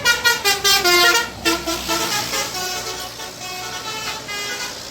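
A bus's multi-tone 'telolet' horn playing a quick tune of short, pulsed notes that change in pitch for about two seconds, then fainter held tones that die away near the end.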